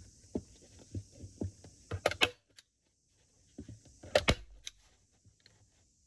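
Hand staple gun firing staples to fix a leather-look sheet onto a wooden board: sharp snaps, the loudest in two close pairs about two seconds apart, with fainter clicks and rustling of the sheet between.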